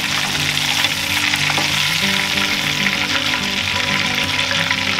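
Breaded whole yellow perch deep-frying in hot oil in a cast-iron skillet: a steady sizzle with fine crackling.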